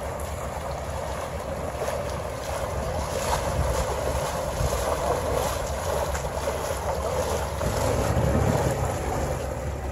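Several people wading through knee-deep floodwater while pushing an inflatable boat, water splashing and sloshing around their legs, with wind rumbling on the microphone.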